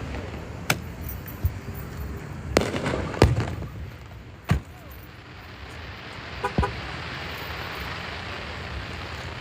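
Aerial fireworks going off: a handful of sharp bangs, the loudest about three seconds in, followed by a steady hiss in the last few seconds.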